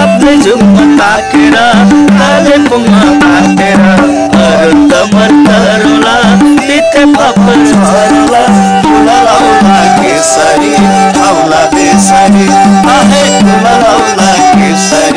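Nepali sarangi bowed in a quick folk tune, its low notes bouncing between two pitches in a steady rhythm under a wavering melody.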